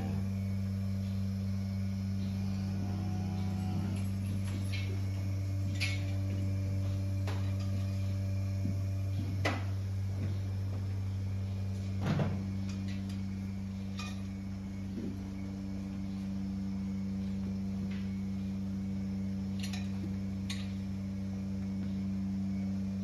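Steady low hum of dairy-barn milking machinery, with a few short knocks and clanks scattered through it, the loudest about halfway through.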